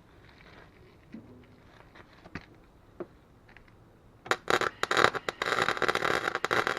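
A wire-feed welder's arc crackling and sizzling as it lays a short weld bead on thin snow thrower auger steel, with the heat turned down. It starts abruptly about four seconds in after a few faint clicks and runs loud and dense with irregular pops for over two seconds.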